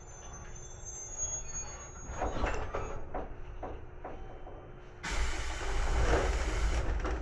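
JR Kyushu 811 series electric train slowing to a stop at a station platform, with a few clunks as it halts. About five seconds in comes a loud, sudden hiss of compressed air from the train's pneumatics, lasting nearly two seconds.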